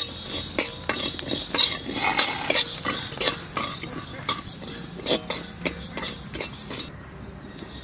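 Metal spatula scraping and clinking in a metal wok, stirring coriander seeds as they dry-roast, a few irregular strokes a second. The stirring stops near the end.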